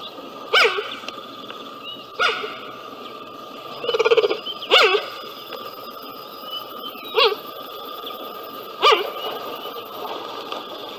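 Cheetah calling: a series of about six short, yelping chirps, spaced one to two and a half seconds apart.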